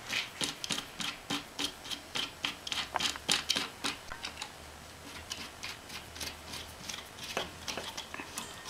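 Quick irregular metallic clicks and light rubbing as the threaded stem latch of a tikit Model T folding bike is wound in by hand. The clicks come thickest in the first half and thin out later.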